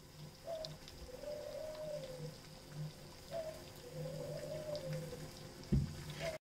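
Mini samosas frying in a tiny pot of hot oil: faint sizzling with small bubble pops, over a wavering tone that swells and falls about every three seconds. A single dull knock near the end.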